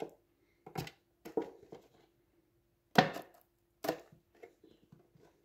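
A red metal money tin being forced open by hand: a series of irregular sharp knocks and clicks, about five strong ones with the loudest about three seconds in, then lighter clicks near the end, over a faint steady hum.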